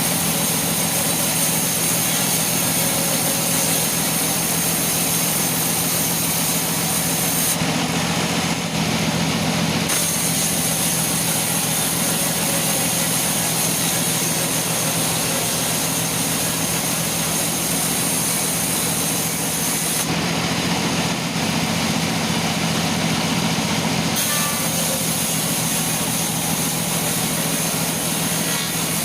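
Sawmill saw machine running steadily, with a constant low hum and a high hiss. The hiss drops away twice, once for about two seconds and once for about four.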